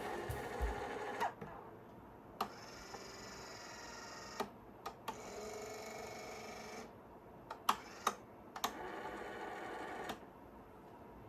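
Small electric motor and gear train of a freshly repaired gyro stage running in two stretches of a few seconds each, a steady whir, with sharp clicks as it starts and stops.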